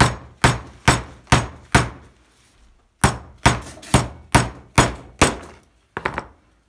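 Hammer striking a steel chisel held on a small glued wood block, driving it in to split the glue joint. Sharp blows come about two a second: five, then a pause of about a second, then six more, with a couple of lighter taps near the end.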